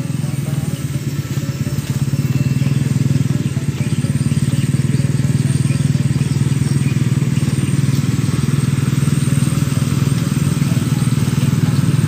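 Small motorcycle engine running steadily close by, growing louder about two seconds in and then holding.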